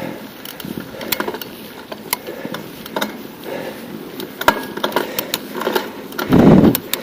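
Bicycle rattling while being ridden: irregular sharp ticks and clicks throughout, with a loud low rush of noise near the end.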